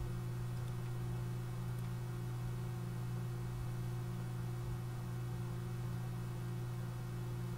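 Steady low electrical hum with a constant background hiss, unchanging throughout, with no other sound standing out.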